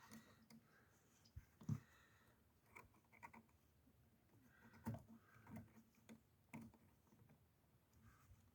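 Near silence broken by a few faint, scattered clicks and knocks.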